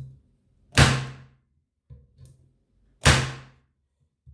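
Parkside PET 25 C3 electric nailer-stapler firing twice, a little over two seconds apart, each shot a sharp snap with a short low buzz as it drives a nail into wood.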